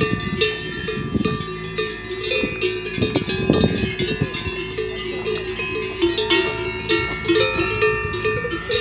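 Several cowbells on grazing brown cows clanking irregularly, their overlapping ringing tones struck again and again as the cows move.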